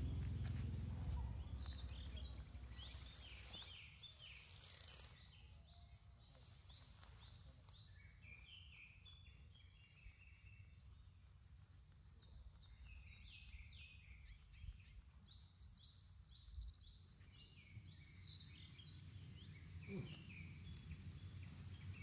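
Small birds singing, with runs of short quick chirps, over a faint low rumble that fades over the first few seconds.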